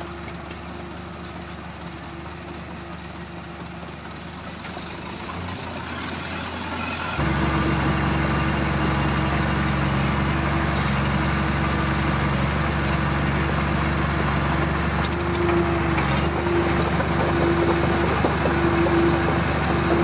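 Komatsu crawler bulldozer's diesel engine running steadily as its blade pushes soil. Heard from a few metres off at first, then much louder and closer, right beside the machine, from about seven seconds in.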